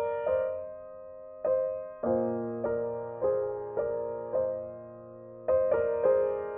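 Background piano music: slow, gentle struck notes and chords that ring and fade between strikes, with a couple of longer held notes.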